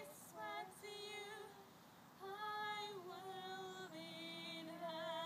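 A female voice singing a slow phrase of long held notes with vibrato, each about a second long, stepping down in pitch from note to note.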